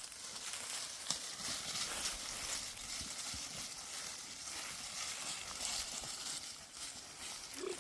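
A flock of sheep moving over mountain pasture: many small hoof steps and rustling through grass. There is a brief low pitched call just before the end.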